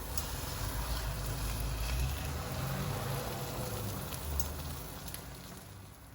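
Food sizzling in a frying pan: a steady crackling hiss with a few faint pops, dying down near the end.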